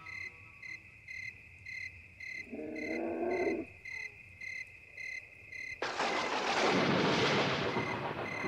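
Cricket chirping in an even rhythm, about two chirps a second, over a steady high insect drone. About three seconds in, a brief low pitched call sounds. From about six seconds, a loud rushing noise swells over the chirping.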